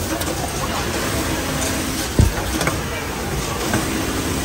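Steady machine noise from an automatic care-label picker and welding machine running, with one low thump a little over two seconds in.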